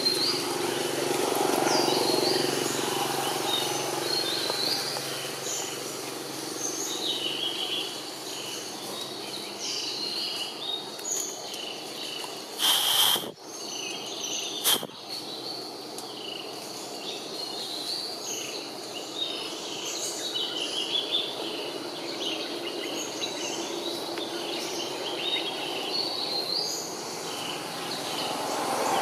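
Forest ambience: small birds chirping in short scattered calls throughout, over steady low background noise. About halfway through comes a brief loud burst of noise lasting under a second, and a sharp click a couple of seconds later.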